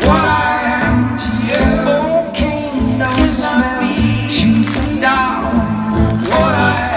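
Live band music with singing over sustained low instrumental notes.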